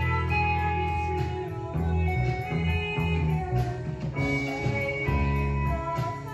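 Live rock band playing, with electric guitars, bass guitar, drum kit and keyboard together and a strong bass line underneath.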